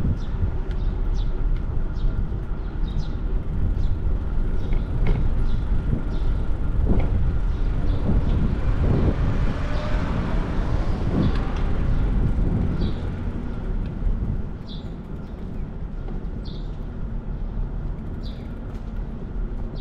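City street traffic rumbling steadily, with a vehicle passing louder in the middle, after which the rumble eases. Short high squeaks recur every second or two.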